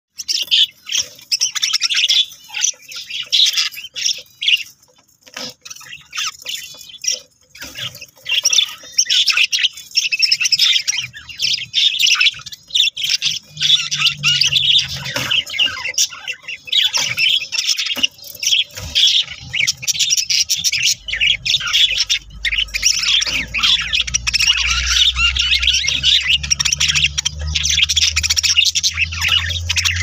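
Budgerigars chattering in a nest box: a dense, rapid run of high chirps and calls with only brief gaps. A low hum comes in about two-thirds of the way through.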